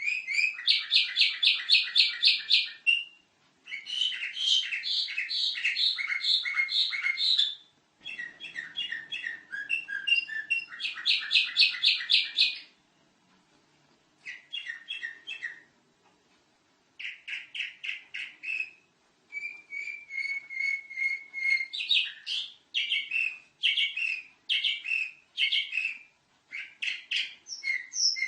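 Domestic canary singing in long trilled phrases, each a fast run of repeated high notes, several a second, with short pauses between phrases.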